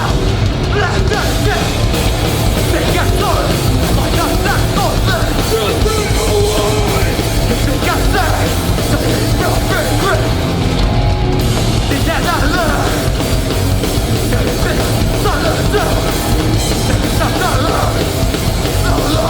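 Hardcore band playing live at full volume: heavy distorted guitars, bass and drums with shouted vocals.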